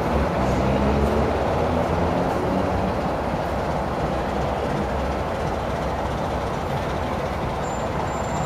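CFR Class 60 diesel-electric locomotive's twelve-cylinder Sulzer engine running steadily as the locomotive moves slowly during shunting.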